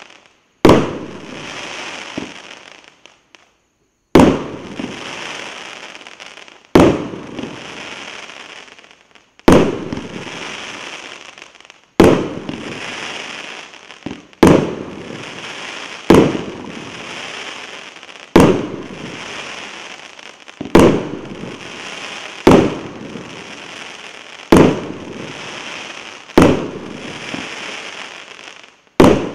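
A 49-shot, 1.25-inch-calibre 'Golden Peony' firework cake firing a shot every two seconds or so: about thirteen sharp bangs, each followed by a hiss that fades away over a second or two. There is a short pause after the first bang.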